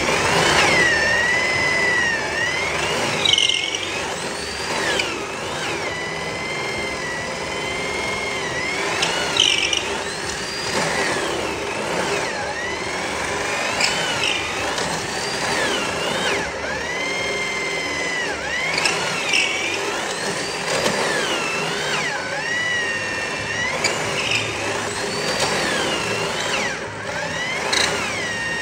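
Electric drill driving a long extension bit deep into the edge of a solid wood slab. The motor's whine runs throughout, its pitch dipping and recovering over and over as the bit loads up in the wood and frees again.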